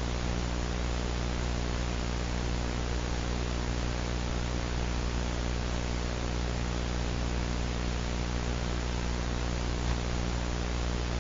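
Steady broadcast static: an even hiss with a low electrical buzz under it, as from a dead or lost signal.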